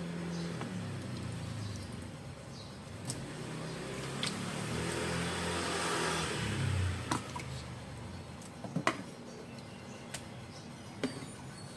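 A motor engine passing close by, growing louder to about six seconds in and dropping away soon after, followed by a few sharp clicks.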